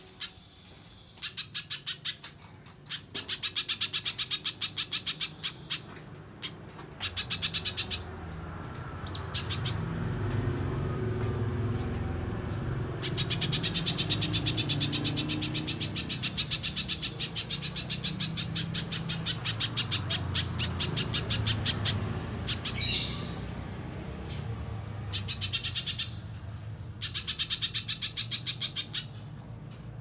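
Little spiderhunter singing hard: loud, very rapid runs of sharp, high repeated notes in bouts of one to three seconds, with one long run of about nine seconds in the middle. A low background rumble sits under the middle part.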